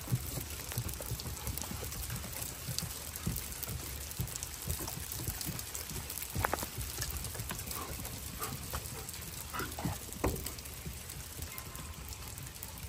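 Small hail falling on a wooden deck: a steady hiss of pellets hitting the boards, dotted with sharp ticks and a few louder clicks.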